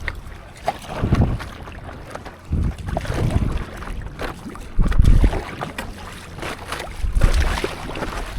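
Stand-up paddleboard on the sea: water splashing and lapping as it is paddled, with wind buffeting the microphone in low surges every second or two.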